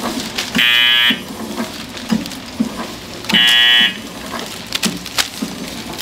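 Automatic packaging machine running with repeated light clacks and knocks from its rollers and sealing mechanism, while an electric buzzer sounds twice, each buzz about half a second long, the second about two and a half seconds after the first.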